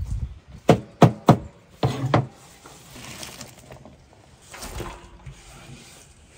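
Large knife chopping cabbage on a wooden board: about five sharp chops in the first two seconds, then the softer rustle of shredded cabbage leaves being gathered and dropped.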